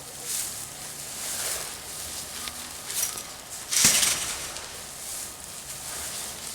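Dry hay rustling and scratching as it is handled, in several irregular short bursts, the loudest about four seconds in.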